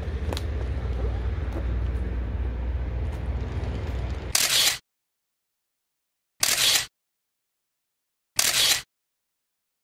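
Outdoor ambience with a low rumble, then three camera shutter clicks about two seconds apart, with dead silence between them: forensic photos being taken of the body.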